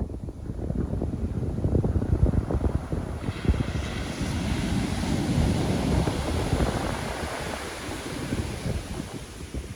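Pacific Ocean surf: a wave breaks about three seconds in and its hiss swells, then fades away near the end. Wind buffets the microphone underneath.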